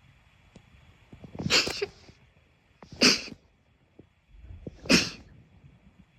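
Three sharp sneezes, about a second and a half apart.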